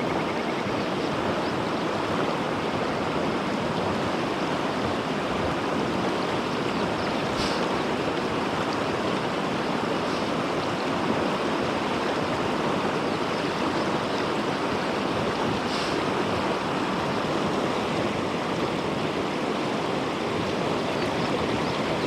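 Swollen mountain river rushing steadily over stones: a constant, even noise of fast, high water.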